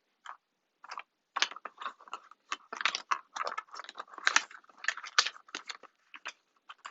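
Beauty-product packaging being handled and rummaged through: a quick, irregular run of crinkles, rustles and small clicks.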